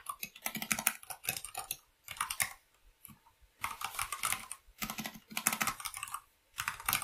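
Computer keyboard typing: rapid keystrokes in three quick bursts, with a pause of about a second and a half after the first burst and a shorter pause before the end.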